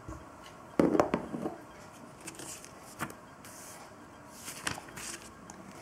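Plastic LEGO bricks handled and set down on a tabletop: a quick cluster of sharp clicks and knocks about a second in, then a few lighter clicks.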